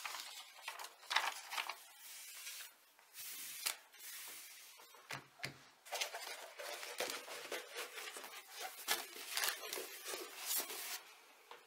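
A diamond-painting canvas and its plastic protective film rustling and crinkling as they are handled, folded back and rolled up by hand, with irregular sharp crackles.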